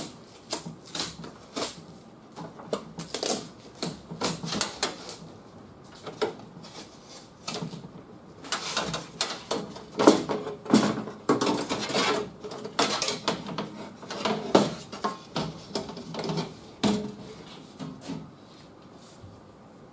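Irregular clicks, taps and rattles from a car door's window glass and the bare metal door shell as the glass is handled and freed to be lowered, busiest in the middle stretch.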